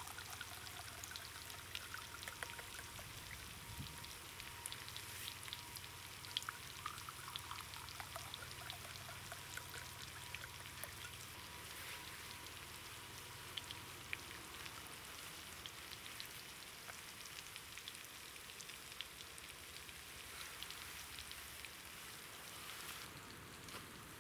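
Red wine poured from a bottle into two stemmed glasses: a quiet, steady pour for the first twelve seconds or so, over a faint patter of small ticks that goes on throughout.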